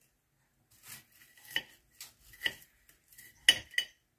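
A table knife sawing through a crisp baked puff pastry roll, the flaky crust crunching in several separate strokes, with sharp clicks of the metal knife and fork against the plate. The loudest stroke comes about three and a half seconds in.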